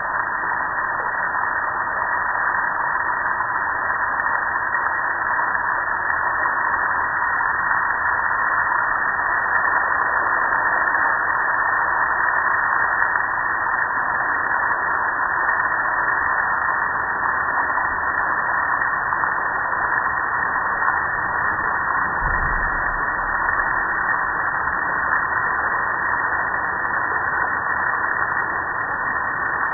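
Water spraying onto a soapy gas grill: a steady hiss of spray splattering on the metal lid and control panel, with runoff pouring off the front.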